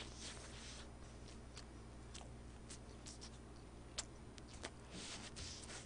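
Faint rustling and a few scattered soft clicks from a paper napkin being handled close to the microphone, over a low steady hum.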